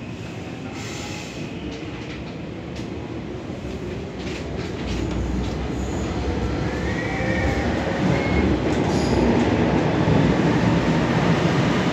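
Helsinki metro train running, heard from inside the car: a dense rumble of wheels and motors that grows steadily louder over the second half as a faint whine rises in pitch. A brief high wheel squeal comes about seven seconds in.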